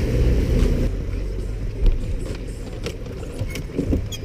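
Low rumble of a bass boat's outboard engine, which drops away about a second in, leaving a low wind-and-water noise with a few light knocks on the boat's deck near the end.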